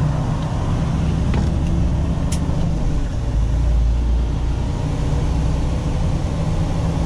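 Semi truck driving on wet highway pavement, heard from inside the cab: a steady low engine drone under tyre and road hiss. A faint click about a second in and a short high squeak a little after two seconds.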